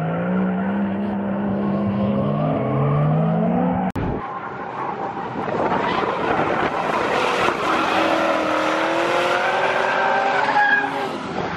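Drift cars' engines revving up and down as they slide through a corner, with tyres squealing and skidding. The sound changes abruptly about four seconds in, then carries on with higher, rising and falling engine notes.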